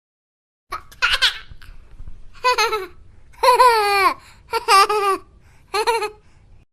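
A baby laughing and babbling in about five short vocal bursts, high-pitched with the pitch sliding up and down.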